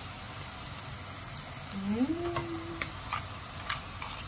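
Ground beef sizzling steadily in a pot on the stove, with a few light clicks of a spatula as mashed potato is added and stirred in. A short rising hum sounds about two seconds in.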